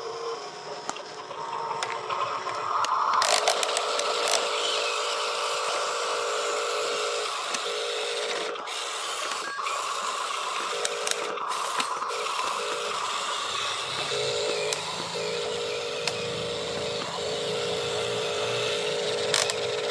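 Small electric motor and gears of a Huina RC dump truck whining, cutting in and out every second or two as the truck is driven.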